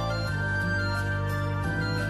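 Instrumental background music, its chords changing every second or so.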